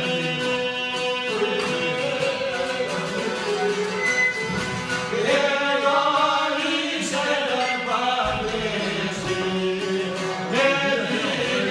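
A man singing a slow, drawn-out Albanian folk song, accompanied by plucked long-necked lutes.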